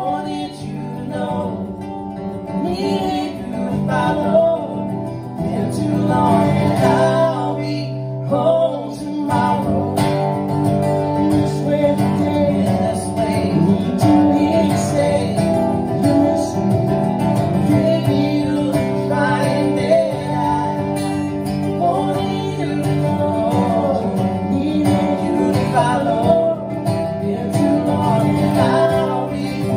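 Two acoustic guitars strummed together under male vocals: a live acoustic duo performing a song.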